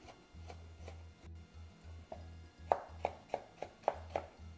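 Chef's knife dicing a tomato on a wooden cutting board: the blade taps sharply against the board, faintly at first, then in a quicker run of about eight louder chops during the last couple of seconds.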